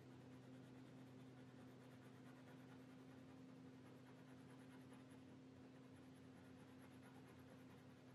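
Faint scratching of a coloured pencil making short hair strokes on hot-press watercolour paper, over a steady low hum.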